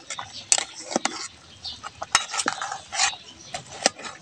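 Metal ladle clinking and scraping against a metal cooking pot while a pot of broth is stirred: a run of irregular, sharp clinks.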